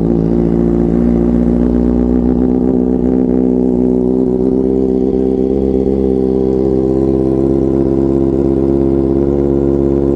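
Kawasaki Ninja ZX-4RR's inline-four idling steadily through an aftermarket SC Project slip-on exhaust, moments after starting. The engine is already warm, at about 41 °C, so it does not hold a fast cold-start idle.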